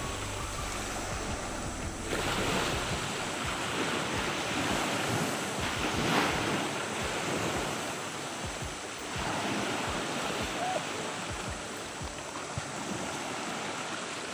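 Small waves breaking and washing in over shallow beach surf, surging and fading in turn. Wind rumbles on the microphone for the first couple of seconds.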